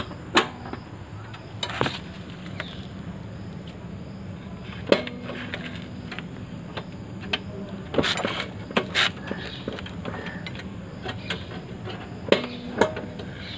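Scattered sharp clicks and light knocks of hands and a phone moving around a scooter's plastic body panels and seat-lock area, several in a quick cluster about eight seconds in, over a steady low background hum.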